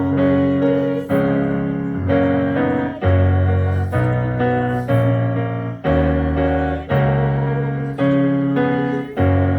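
Piano playing a slow hymn in block chords, a new chord struck about once a second, each ringing on until the next.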